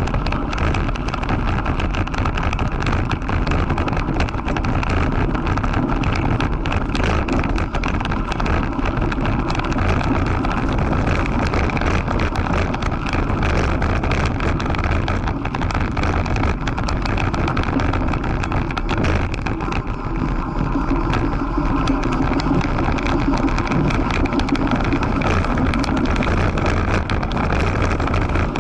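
Mountain bike riding over a loose gravel track: steady crunch and rumble of the tyres on the stones, with the bike rattling in constant small clicks and wind buffeting the microphone.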